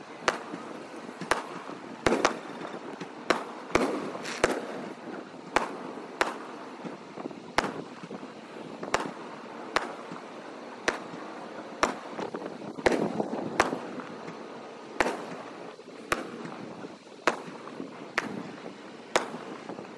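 Aerial firework shells bursting in steady succession, a sharp bang roughly every second, with a continuous noisy din in between.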